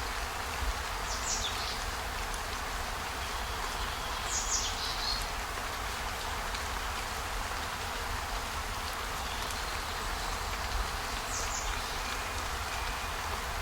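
Steady hiss with a low rumble, as in a relaxation ambience track, broken by short high chirps that fall in pitch, about a second in, at about four seconds and near the end.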